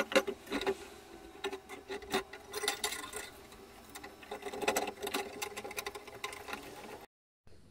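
Screwdriver turning the worm screw of a steel hose clamp: spurts of quick, light clicking as the screw threads ride the band's slots, with short pauses, cutting off abruptly about seven seconds in.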